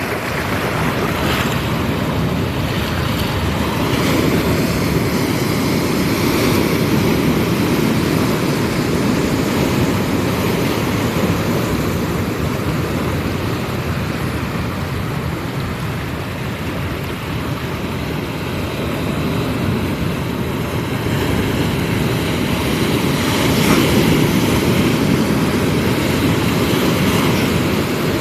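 Ocean waves rushing and washing onto the beach, a steady surf noise that swells louder twice, about a third of the way in and again near the end.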